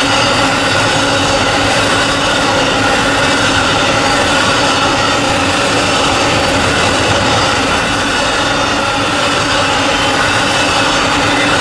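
Amtrak Auto Train's enclosed autorack cars rolling past at speed: a loud, steady rush of steel wheels on rail with constant whining tones over it.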